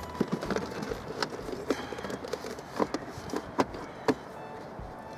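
A car's heater blower motor and its housing being handled under the dashboard: a series of sharp clicks and knocks, the loudest near the middle and towards the end, with short squeaks between them.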